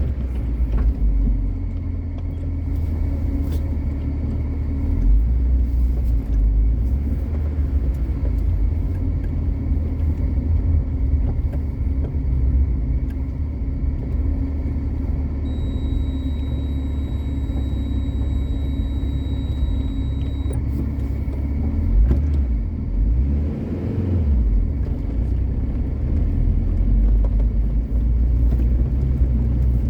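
A car running, with a steady engine drone and uneven low road rumble throughout. A faint high whine is heard for a few seconds midway.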